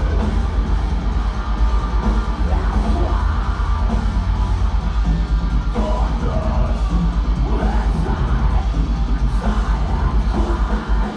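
Metalcore band playing live: heavy distorted guitars, bass and drums, with yelled vocals over them.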